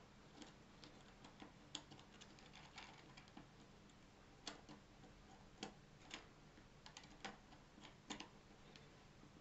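Faint, irregular small clicks and taps of stiff 3D-printed plastic parts being handled as a cap is pressed into place over a clock's hand mechanism, against near-silent room tone.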